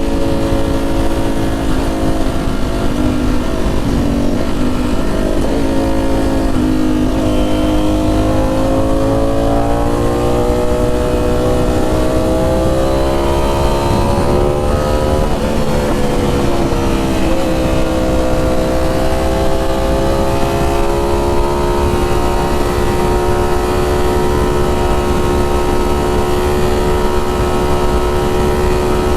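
Ducati Streetfighter V4S's 1103 cc V4 engine through SC Project titanium exhausts, riding along. The engine note climbs slowly, breaks about halfway through at a gear change and drops in pitch, then holds fairly steady, rising slightly. A steady low rumble of wind and road noise runs underneath.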